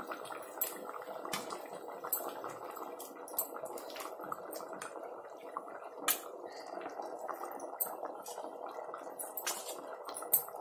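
Thick chana masala gravy bubbling at a boil in an open aluminium pressure cooker, stirred with a steel ladle that clicks against the pot now and then.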